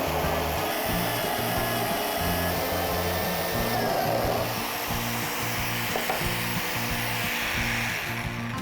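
A power tool working wood, a steady rushing noise, over background music with a stepped bass line. The tool noise fades near the end.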